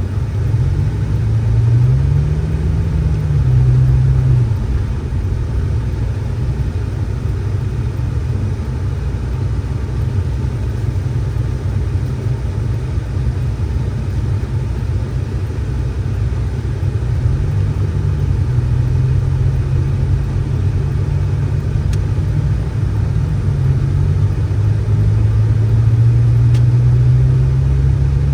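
A vehicle engine running with a low rumble, its pitch rising and falling as it revs up and eases off a few times and climbing again near the end.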